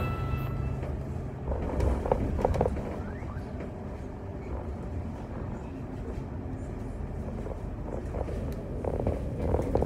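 Cabin sound of a double-decker bus under way: a steady low engine and road rumble, with short bursts of rattling from the body and fittings about two seconds in and again near the end.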